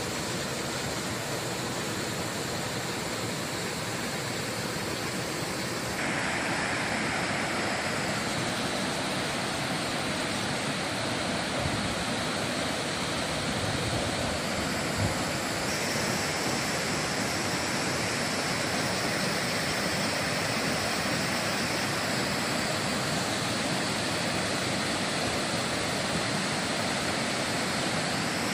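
Waterfall cascading down a steep rock slab, a steady rush of water that gets louder about six seconds in.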